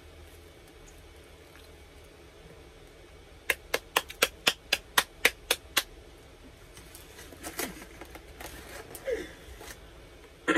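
A quick, even run of about ten sharp clicks or taps, roughly four a second, followed by softer scattered rustles.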